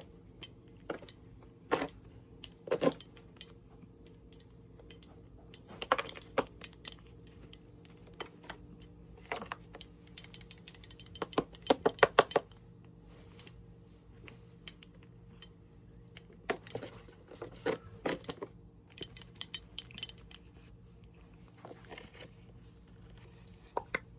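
A jingling cat toy being played with: light metallic jingles and clicks in irregular bursts, densest about ten to twelve seconds in, over a steady low hum.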